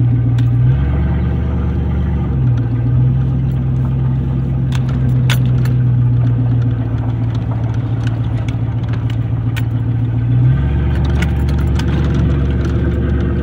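Big-block 454 (7.4 L) gas V8 in a 1994 Chevy 2500 pickup running loud through an exhaust cut open ahead of the catalytic converter, heard from inside the cab while driving slowly. The deep engine drone shifts pitch abruptly a few times, and light rattles and clicks come through over it.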